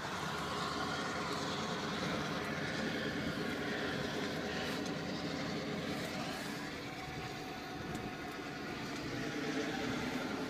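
Inside-the-cabin sound of a 2013 Mercedes-Benz SL63 AMG on the move: its twin-turbo 5.5-litre V8 running steadily under road and tyre noise.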